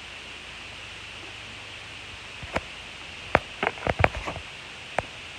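A faint steady hiss, then from about halfway in a run of sharp clicks and knocks from small objects being handled, most of them close together, with a last single click near the end.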